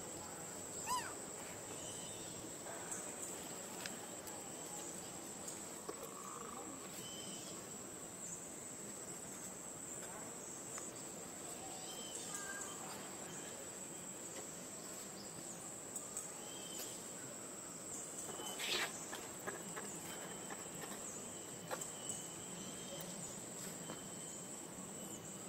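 Steady high-pitched drone of forest insects, with scattered faint chirps and small clicks, and one short louder noise about 19 seconds in.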